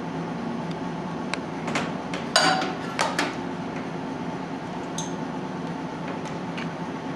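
Light clinks and knocks of a serving bowl and utensil against a pot as rice is scooped out, scattered irregularly, the loudest about two and a half seconds in with a short ring, over a steady hum.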